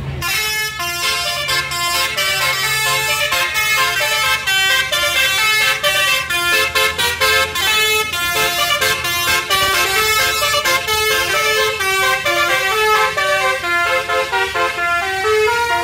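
Multi-tone basuri 'telolet' horn of a PHD Trans tour bus playing a fast melody of short notes, with sharp clicks as the notes switch. A longer held note sounds near the end.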